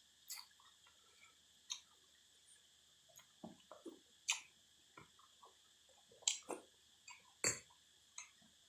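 Close-up eating sounds: chewing and crunching of noodles and fresh raw vegetables, with sharp clicks and wet smacks about once a second, the loudest in the second half. Under them runs a faint steady high drone of cicadas.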